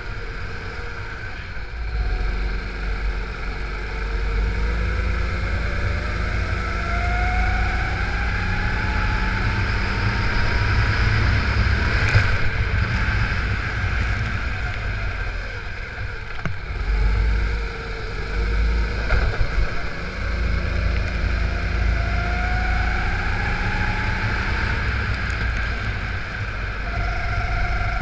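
Go-kart engine heard from the onboard camera, revving up in long rising sweeps along the straights and falling off into the corners, twice. Wind buffets the microphone throughout.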